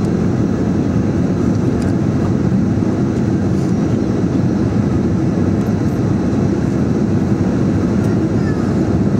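Cabin noise of a Boeing 767-300ER descending on approach: a steady low rumble of engines and rushing air, heard from inside the passenger cabin.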